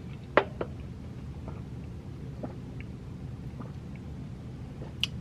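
Soft gulping and mouth sounds of a person drinking soda, with two sharp clicks about half a second in and a few faint clicks after, over a steady low room hum.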